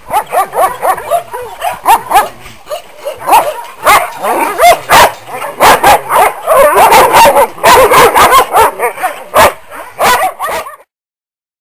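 A pack of German shepherd-type dogs barking and yelping, many loud barks overlapping in quick succession. The barking cuts off suddenly near the end.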